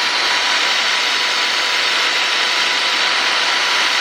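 Black & Decker Alligator Lopper's electric motor driving its chain at full speed with no load: a steady, even running sound with a faint high whine.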